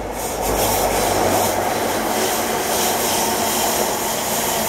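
Virgin East Coast InterCity 125 HST passing at speed close by, loud and building up about a quarter second in. The leading diesel power car's deep rumble comes first, then the steady rush and rumble of the coaches' wheels on the rails.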